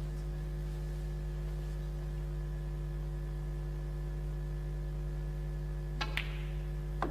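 Steady electrical mains hum. About six seconds in comes a sharp click of snooker balls, and a second click follows about a second later, as a shot in the break is played.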